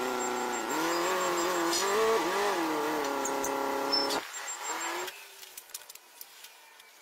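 Forklift engine running, its pitch rising and wavering as it revs. It stops abruptly about four seconds in, leaving faint clacks of split wood being stacked.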